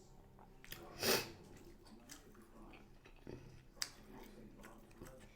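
Close-miked mouth sounds of a toothless person chewing food with her gums, with wet clicks and smacks. One louder noisy burst comes about a second in.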